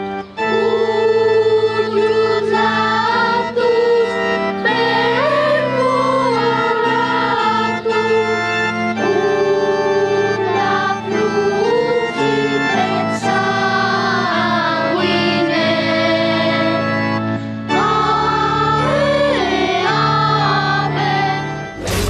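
Choir of children's voices singing a slow hymn over sustained organ chords. Just before the end it switches abruptly to different music.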